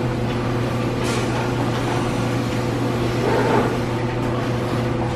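Car engine drone and road noise heard from inside the cabin, steady throughout.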